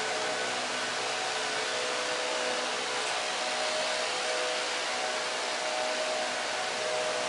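Steady, even hiss of background noise with faint steady hum tones underneath.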